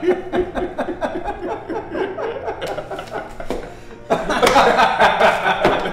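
Two men laughing heartily together. The laughter eases off briefly, then breaks out louder again about four seconds in.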